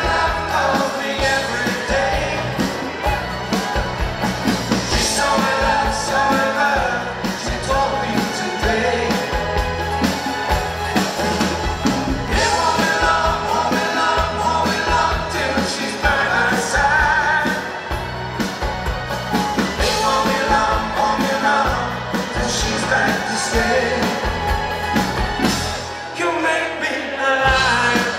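Live rock band playing a song: lead vocals over acoustic guitar, electric bass and drums.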